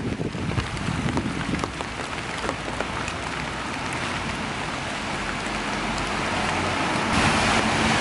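Steady rain with scattered drop taps. The hiss of car tyres on the wet street swells toward the end.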